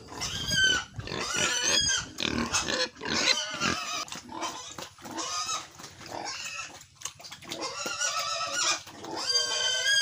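Pigs squealing in repeated high, wavering cries, loudest about a second in and again near the end: hungry pigs crying out for their feed at feeding time.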